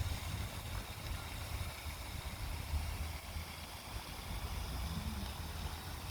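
Steady low, uneven rumble with an even hiss over it: wind and water noise out on a lake.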